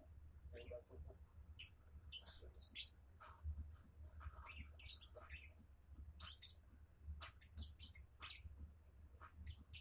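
Lovebird making rapid, high-pitched squeaky chirps in irregular runs of several a second, over a low steady hum.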